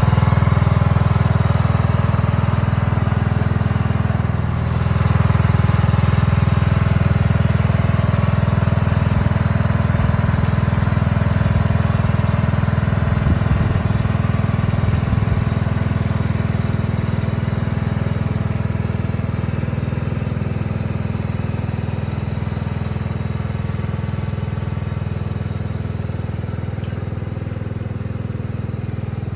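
Cub Cadet riding lawn mower's engine running steadily while the mower drives off, growing gradually fainter as it pulls away.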